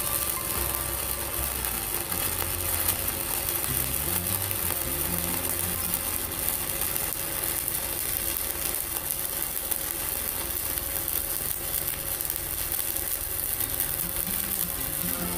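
Stick-welding arc from a mini IGBT inverter welder, crackling and hissing steadily as a 4.0 mm electrode burns down continuously, under background music.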